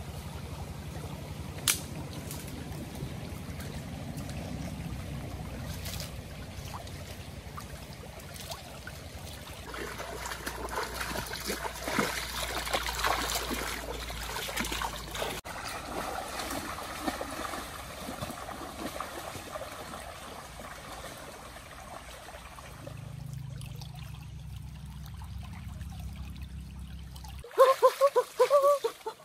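Shallow forest stream trickling and flowing steadily. Near the end come loud, uneven splashes as someone wades and works in the shallow water.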